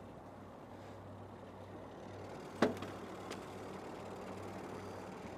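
Boat motor running steadily at trolling speed, a low even hum. A single sharp click sounds a little past halfway through.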